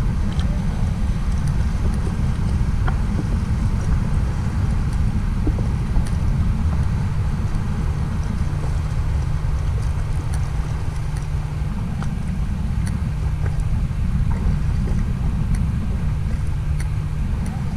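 Wind buffeting the camera's microphone, giving a steady low rumble, with a few faint clicks over it.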